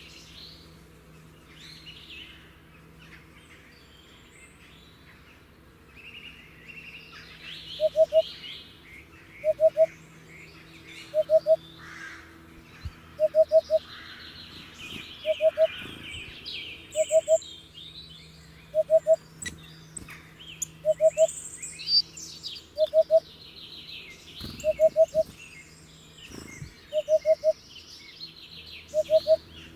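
Hoopoe calling: short groups of two or three low notes, repeated about every two seconds from about eight seconds in, over a chorus of smaller birds chirping higher up.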